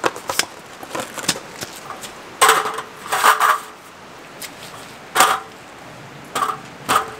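Clicks, knocks and clatter as a folding camp table is opened and stood up, then a plastic water jug and a drink cooler are set down on its top. The knocks come in short clusters, a few with a brief ring.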